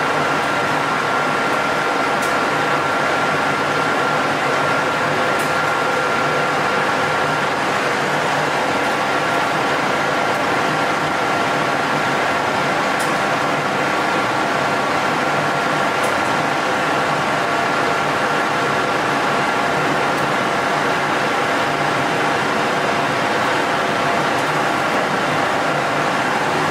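Colchester metal lathe running steadily under a turning cut, its gearing giving a steady whine over the hum of the machine, with a few faint high ticks.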